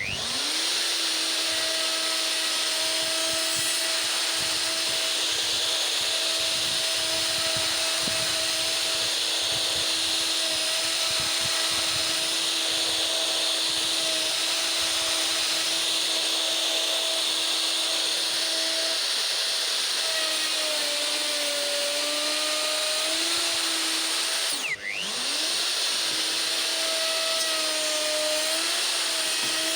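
Makita router spinning up and running with a steady high whine while levelling an end-grain elm slab. Its pitch sags for a few seconds under load near the end. About 25 s in it drops sharply for a moment and then climbs straight back.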